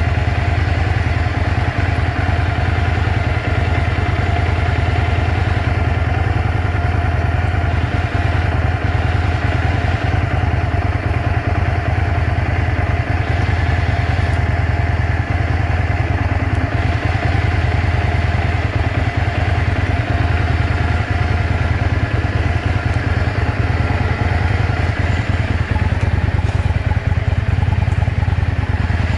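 Stock Yamaha Drag Star 400 Classic's air-cooled V-twin engine idling steadily through its standard exhaust, with no unusual noises.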